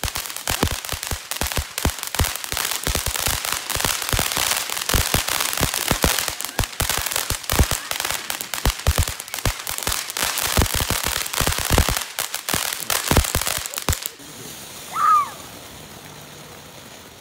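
Ground fountain firework spraying sparks with rapid, dense crackling pops that stop abruptly about fourteen seconds in. A short rising-and-falling high tone follows soon after.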